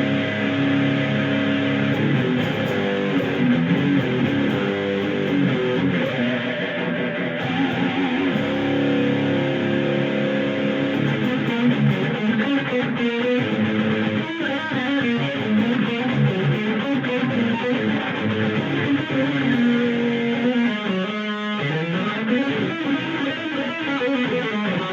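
Schecter Demon-6 electric guitar on its bridge pickup through a Boss DS-1 distortion pedal with the gain near maximum, playing held power chords and metal riffs, with a run of single notes near the end. The tone is bright with super scooped mids.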